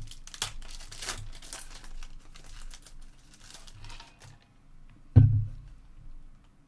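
Trading card pack wrapper crinkling and cards rustling as they are handled, a run of short crisp rustles, then a single dull thump about five seconds in.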